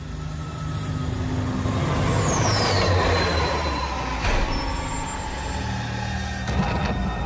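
Cartoon sound effects of a heavy machine or vehicle: a steady low rumble, a falling whine about two seconds in, and a few clanks near the end.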